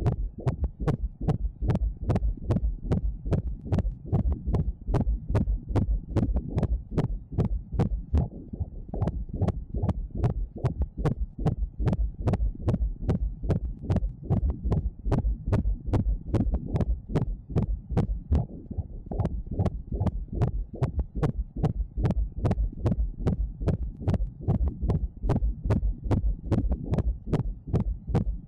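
Fetal heartbeat heard through the ultrasound machine's Doppler audio: a fast, even pulsing at about two and a half beats a second.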